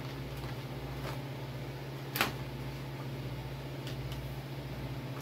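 Steady low electric hum with one sharp click a little over two seconds in, as a bag is loaded into a countertop vacuum sealer and its lid pressed shut.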